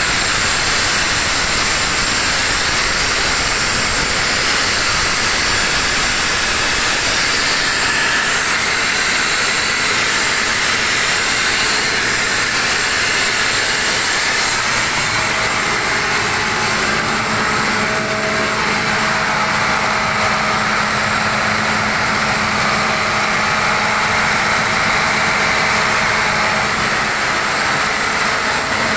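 Airman PDS655 portable diesel screw air compressor running steadily on a test run after an airend service: a loud, even rushing hiss of air over the engine's running, with a faint steady hum joining about halfway through.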